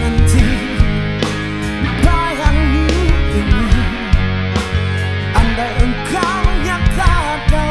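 Rock band playing live: drums, bass and electric guitar, with a lead melody line that slides and bends in pitch.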